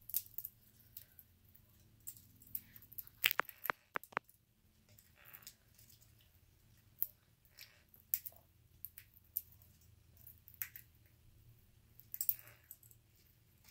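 Canary-winged parakeet cracking black-oil sunflower seeds with its beak: irregular sharp clicks and cracks of the shells splitting, with a quick run of loud cracks about three to four seconds in.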